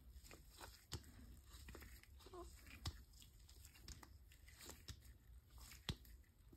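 Near silence with faint rustling and a few soft clicks, the loudest near the end, from gloved hands turning a plastic ornament on a stick and working epoxy over it.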